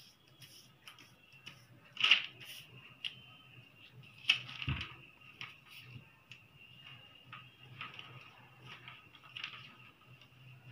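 Hands pressing, smoothing and lifting large glued paper sheets: paper rustling and light pats, with the two sharpest about two and four seconds in, over a faint steady hum.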